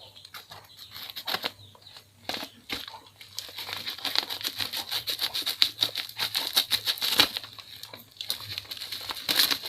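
Plastic parcel wrapping being crinkled and torn open by hand: scattered crackles at first, then a dense run of crinkling from about three seconds in until near the end.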